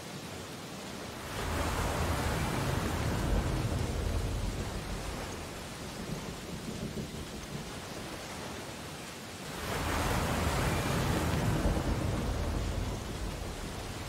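Sea waves breaking on a shore: two surges of surf, one about a second in and another near ten seconds, each rising quickly and fading over a few seconds, with a steady hiss of water between them.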